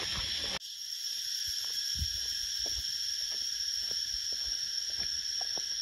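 Steady high-pitched insect chorus from the forest, holding several even tones, with a brief drop about half a second in. Light footsteps on a dirt path tap faintly underneath.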